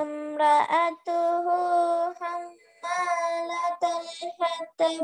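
A child chanting a Quranic verse in Arabic in a slow, melodic recitation, holding long notes with short breaks between phrases.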